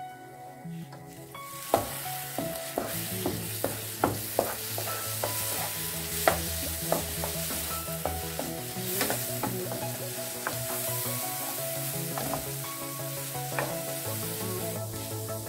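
Scrambled eggs sizzling in a frying pan over reduced heat while a wooden spatula stirs and breaks them up, with sharp scrapes and taps of the spatula on the pan. The sizzle sets in about a second and a half in.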